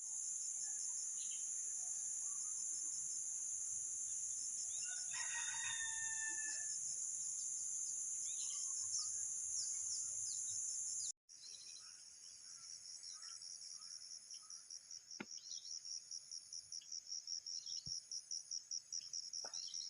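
A rooster crows once about five seconds in, over a steady high-pitched drone of insects and scattered bird chirps. About eleven seconds in the sound cuts, and the insects come back as a rapid pulsing trill.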